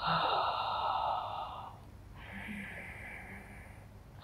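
A woman breathing deeply and audibly while holding a stretch. A loud, breathy exhale lasts about a second and a half. About two seconds in comes a quieter breath of similar length.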